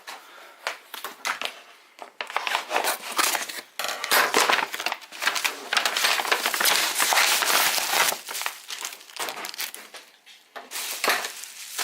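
Packaging wrapping crinkling as it is handled and pulled open by hand: an irregular crackle, loudest in the middle.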